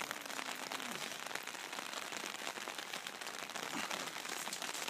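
Light rain pattering, a steady crackling hiss of many small drops.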